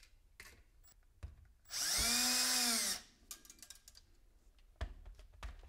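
Cordless drill driving a screw into a wooden board, running once for a bit over a second: its whine rises as it spins up, holds, and drops as it stops. Light clicks and knocks of handling come before and after.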